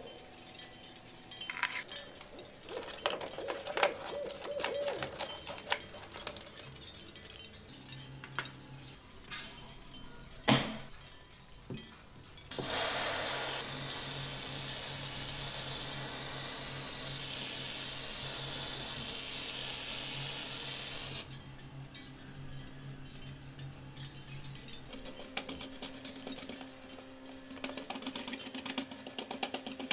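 A toothbrush scrubs small metal finger-bike parts in soapy water, with light clinks and clicks. Then paint remover is sprayed onto the tiny bike frame in a steady hiss of about eight seconds that starts and stops abruptly. Near the end a brush scrubs the softened paint with quick rubbing strokes.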